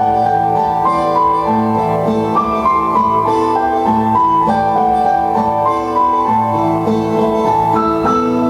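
Instrumental interlude between sung verses of a Hindi song: a melody of held notes stepping over steady chords, with no voice.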